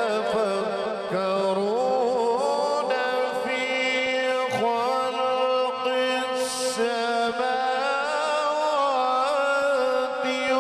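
A male qari reciting the Quran in a slow, melodic chant into a microphone. His voice glides and ornaments at first, then holds one long, drawn-out note for most of the stretch.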